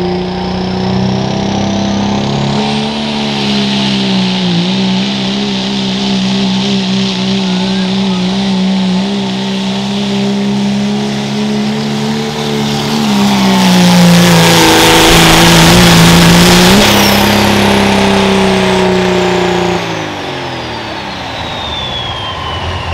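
Turbocharged diesel pulling truck running hard under load down the track, the turbocharger whistle rising in the first few seconds over a steady engine note. It gets loudest and noisiest about two-thirds through, then the engine lets off near the end and the turbo whine winds down.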